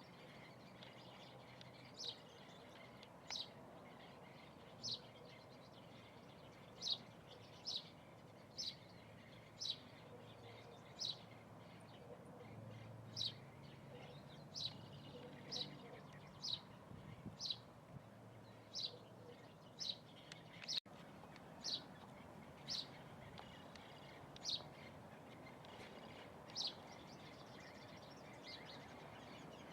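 A small bird giving short, high chirps about once a second, repeated over and over, over a steady low background hum.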